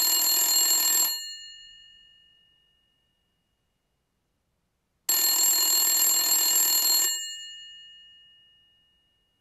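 Electric telephone bell ringing: a ring that stops about a second in, then after about four seconds of silence a second ring of about two seconds, each one dying away briefly as the gongs ring out.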